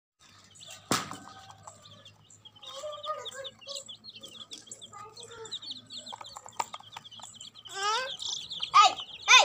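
Baby chicks peeping: a steady run of short, high cheeps, with a sharp click about a second in. Near the end come a few louder rising cries.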